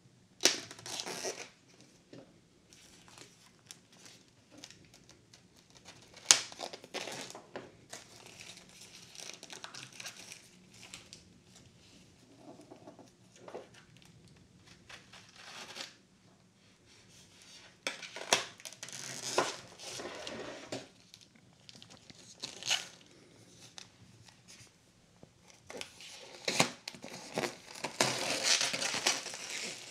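Clear plastic shrink-wrap being slit and torn off a large hardcover book, crinkling and tearing in several separate bursts with quieter pauses between, the longest near the end.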